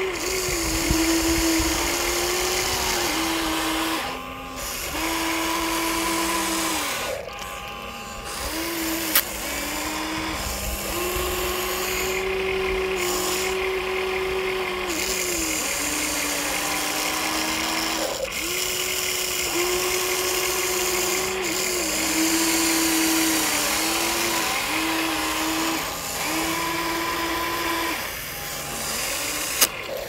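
Small electric gear motors of a remote-control toy construction vehicle whining as it is driven, starting and stopping every few seconds, with the pitch stepping up and down. A sharp click about nine seconds in.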